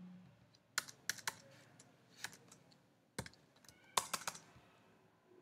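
Computer keyboard keystrokes: scattered single key taps, then a quick run of several keys about four seconds in.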